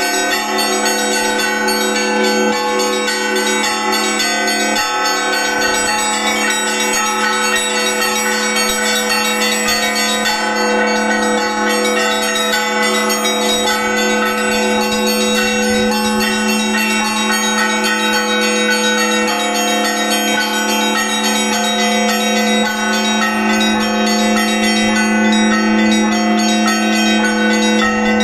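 Russian Orthodox church bells played by a single bell-ringer: several bells ringing together in a dense, unbroken festive Easter peal.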